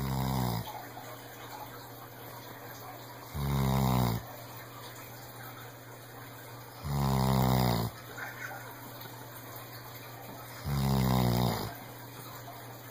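A senior Weimaraner snoring: a low, rough snore about every three and a half seconds, each lasting about a second, four in all.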